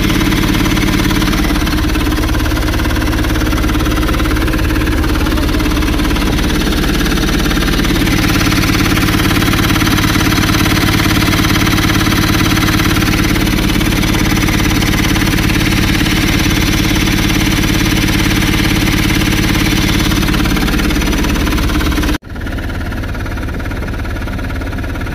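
Freshly rebuilt Mahindra Supro two-cylinder turbo-diesel engine running steadily at an even speed, heard up close. About 22 seconds in the sound breaks off sharply and carries on a little quieter.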